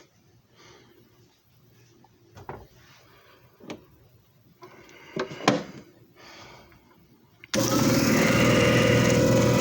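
A few light knocks and clicks, then a JFJ Easy Pro disc repair machine's motor switches on suddenly near the end and runs loud and steady, with a low hum and a steady whine.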